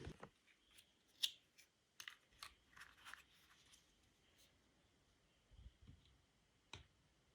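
Faint, sharp clicks of LEGO plastic bricks being handled and pressed together: one louder click about a second in, a quick cluster over the next couple of seconds, and a last click near the end.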